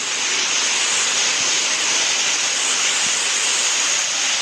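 Steady, even static-like hiss with no breaks or changes.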